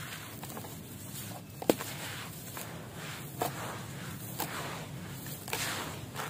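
Crumbly black concrete being crushed by hand over a basin of water: gritty crunching as the pieces break and the grit falls onto a wet pile. A sharp crack stands out about one and a half seconds in, with smaller snaps later.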